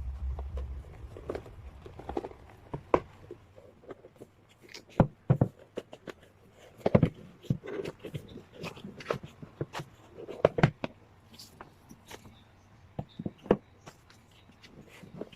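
Hands handling album packaging: irregular taps, clicks and light rustles, with a few sharper knocks as the album and its contents are moved and set down.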